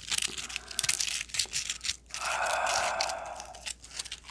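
Crispy fried chicken skin crackling and crunching as it is pulled apart and bitten into: a run of sharp crackles, thickening into about a second and a half of dense crunching in the middle.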